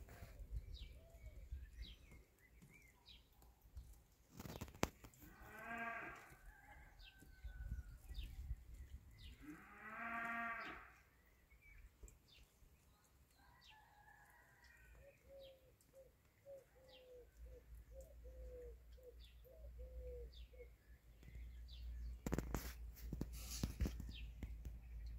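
Two drawn-out animal calls, about six and ten seconds in, the second louder and about a second long, over faint, scattered high chirps. Rustling near the end.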